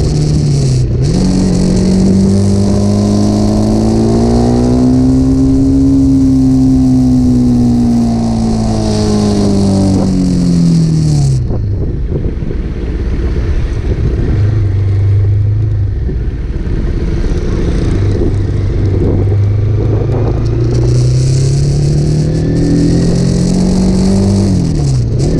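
Motorcycle exhaust fitted with a Scorpion aftermarket muffler, the engine running and changing speed: its pitch climbs slowly for about six seconds, falls back over the next five, holds lower and steadier for a while, then climbs again near the end.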